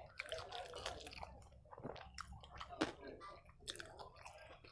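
Close-up chewing of a mouthful of rice and dal with fried vegetables: wet, smacking mouth sounds and many small clicks.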